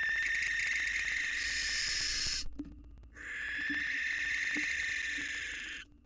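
Barn owl giving long, harsh, rasping screeches: one ends about two and a half seconds in, and after a short break a second runs from about three seconds in until just before the end.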